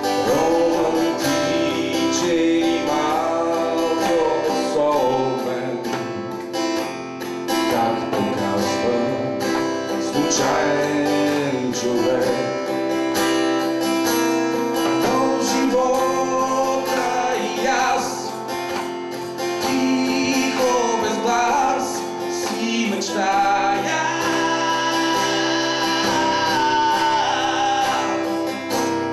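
A song performed live: an acoustic guitar playing with a voice singing over it.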